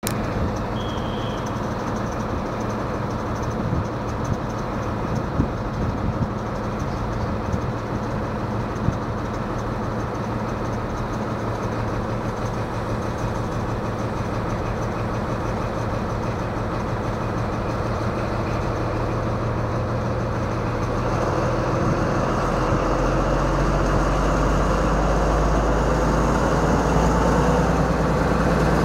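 Paxman VP185 V12 diesel engine of a Class 43 HST power car idling steadily, then opening up about 21 seconds in as the train pulls away, growing louder with a stronger low rumble.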